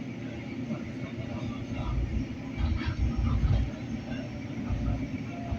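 Light-rail train car in motion, heard from inside: a steady rumble of wheels on the rails, swelling into heavier low thumps about two seconds in and again near the end.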